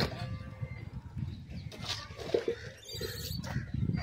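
Repeated high chirping calls over a low, constant rumble, with a brief louder mid-pitched call a little after two seconds in.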